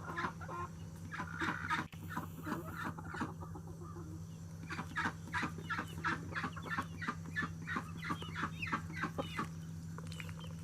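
Chickens clucking, with many short calls coming quickly, about three or four a second in the second half. A steady low hum runs underneath.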